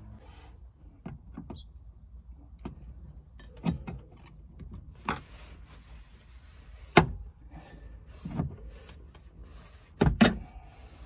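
Needle-nose pliers clicking and scraping against a car door's metal edge as a small tab is gripped and worked loose. There are several sharp separate clicks, the loudest about seven seconds in, and a quick double click near the end.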